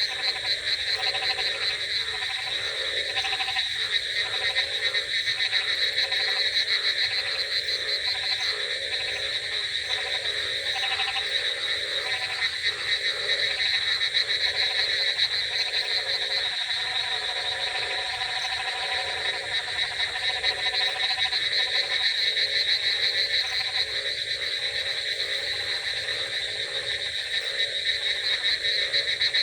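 Dense chorus of frogs croaking, many calls overlapping without a break.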